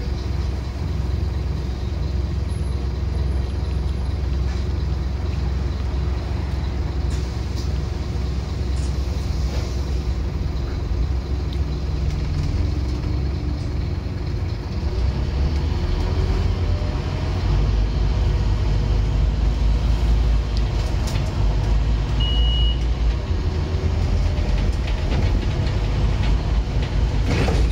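Scania N230UD OmniCity double-decker bus under way, heard from the upper deck: the five-cylinder diesel's low drone with road and body noise, its note climbing for a few seconds midway and the whole growing louder in the second half. A short high beep sounds once, a little after twenty seconds in.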